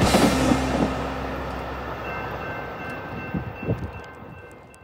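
Metra bilevel commuter train rushing past at speed, its noise fading as the last cars go by. A couple of brief knocks come near the end, and faint steady high tones begin partway through.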